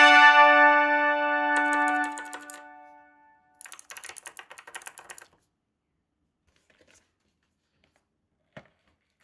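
A single ringing note, rich in overtones, sounds at the start and fades away over about three seconds. Then comes a quick run of light plastic clicks lasting about a second and a half, like keys being pressed, and one short knock near the end.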